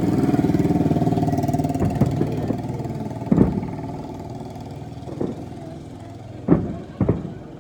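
A motor engine running close by, loudest in the first second and then fading as if moving away. Several sharp firework bangs break in over it, the loudest about three and a half and six and a half seconds in.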